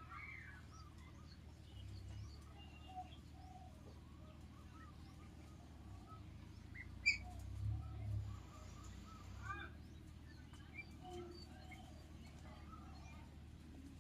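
Ducklings peeping continually with many short chirps. Under them a low rumble swells in the middle, and a single sharp click comes about seven seconds in.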